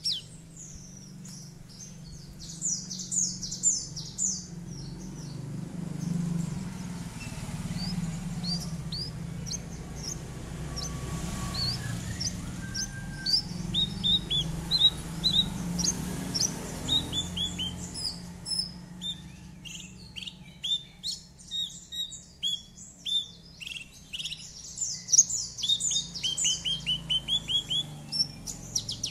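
Horsfield's bushlark (branjangan) singing a fast, varied song of short chirps and quick runs of repeated notes, in clusters with brief pauses, over a low steady background hum.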